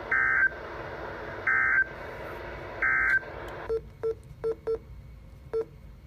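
Three short bursts of EAS SAME data tones, the end-of-message code that closes a weather radio alert, each under half a second and evenly spaced, over steady receiver hiss that drops out after the third burst. Then five short electronic beeps at uneven intervals.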